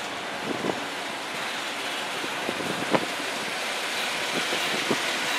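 Open-sided tram car rolling along a road: a steady rush of road and wind noise that slowly grows louder, with a few knocks and rattles from the car, the loudest about three seconds in.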